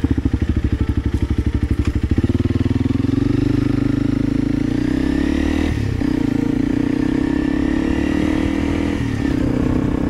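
Honda CRF300 Rally's single-cylinder engine pulling away from a stop and accelerating, its firing pulses rising in pitch over the first few seconds. The engine note dips briefly about six seconds in and again about nine seconds in, and otherwise runs steadily.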